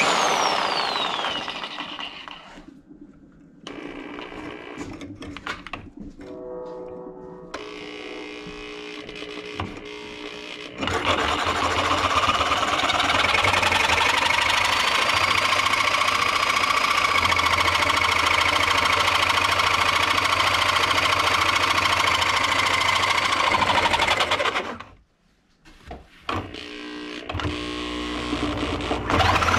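Power tool running steadily at high speed for about thirteen seconds with a held whine, cutting down a long threaded bolt clamped in a vise. It starts about eleven seconds in and cuts off suddenly near the end.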